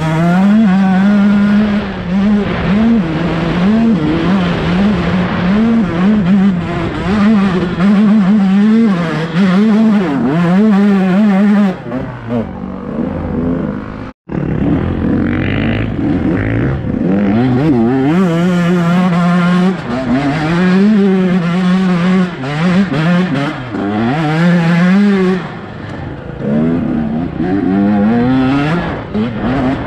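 Two-stroke KTM 125 dirt bike engine revving hard under load on a rough hill trail, its pitch rising and falling again and again as the throttle is worked. The sound drops out for an instant about halfway.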